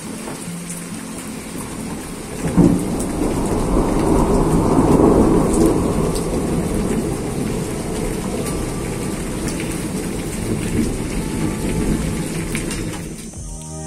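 Rain falling steadily. About two and a half seconds in, a sudden rumble of thunder breaks and rolls on for several seconds before slowly fading.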